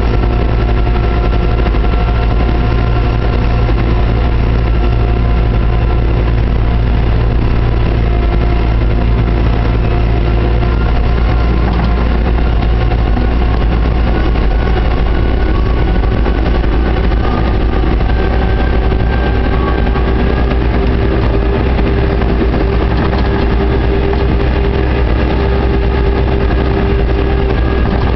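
JCB 532-120 telehandler's diesel engine running steadily under way, heard from inside the cab. A steady whine grows louder about two-thirds of the way through.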